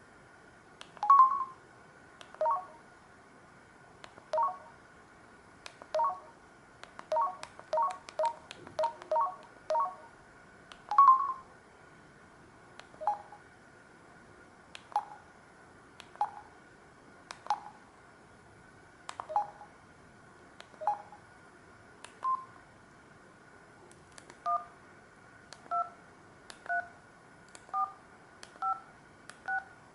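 Samsung SGH-D780 mobile phone keypad being pressed, each key giving a short two-tone DTMF beep with a faint click. There are about two dozen presses at an uneven pace, some in quick runs, over a faint steady high whine.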